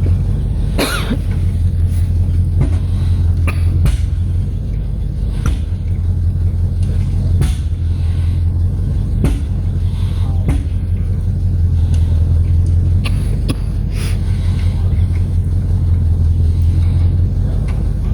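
An engine running steadily with a low rumble, broken by occasional sharp knocks.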